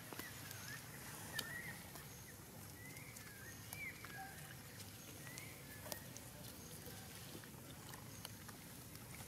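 Faint outdoor ambience: scattered short, high chirps through the first several seconds and a few soft clicks, over a low steady rumble.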